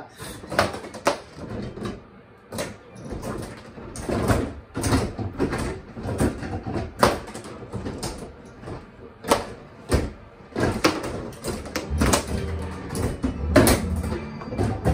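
Bubble hockey table in play: irregular clacks and knocks as the rods are worked and the plastic players strike the puck and the boards, with a low rumble in the last few seconds.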